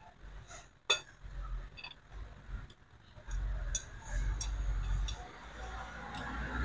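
Hand tools working on a removed Honda CB150R electric starter motor being taken apart: a sharp metallic click about a second in, then scattered ticks and clinks of metal on metal, with handling noise and a thin high-pitched scrape in the middle as a long metal tool is worked against the motor's end.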